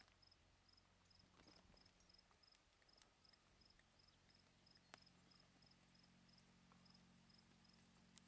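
Near silence with a faint insect chirping steadily, high-pitched, about three chirps a second, stopping shortly before the end; a few soft clicks.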